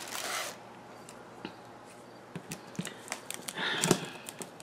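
Faint handling noises: scattered small clicks and rustles, with a short louder rustle at the start and another near the end that ends in a sharp click.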